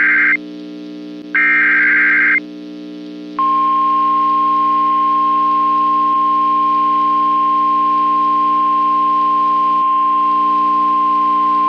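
NOAA Weather Radio emergency alert signal. First the end of one SAME digital header burst, then one more about a second later, each a rapid two-tone electronic warble. About three and a half seconds in, the steady 1050 Hz warning alarm tone begins, over a constant low hum.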